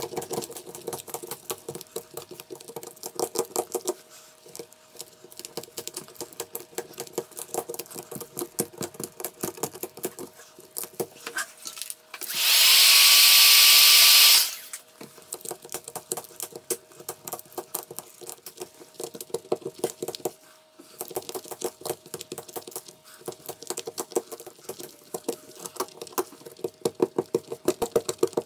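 Fast, continuous scraping and crunching of a metal tool working over cracked back glass and adhesive on an iPhone 8 Plus, a rapid run of small clicks. About halfway through, a loud blowing hiss lasts about two seconds and then stops.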